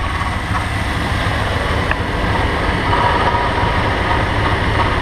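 Engine of a 1989 vehicle running with the hood open, with a steady grinding from its alternator: the sign of an alternator about to fail.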